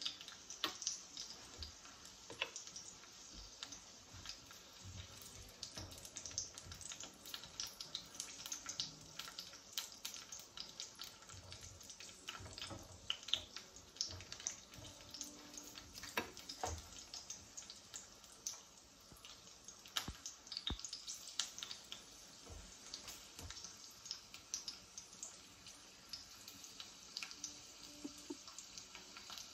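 Oil sizzling gently over low heat as garlic cloves and green chiles fry: a faint steady hiss with frequent small crackles and pops.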